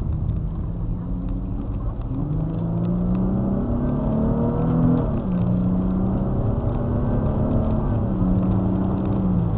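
Car engine and road noise heard from inside the moving chase vehicle as it accelerates. The engine note climbs for a few seconds, drops abruptly about five seconds in, then holds steady over a constant low rumble of tyres on the wet road.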